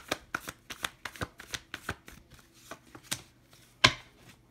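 A deck of oracle cards being shuffled by hand: a run of quick, uneven card flicks, about three or four a second, then one louder slap of a card on the table near the end.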